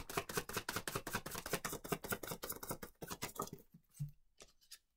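A deck of tarot cards being shuffled by hand: a fast run of light card flicks for about three seconds that thins out and stops about four seconds in.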